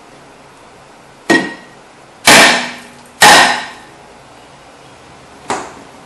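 Hammer blows on a rusted, seized rear brake rotor of a 2006 Ford Escape, knocking it loose from the hub. There are four metallic strikes; the second and third are the loudest and ring out briefly, and the last is lighter.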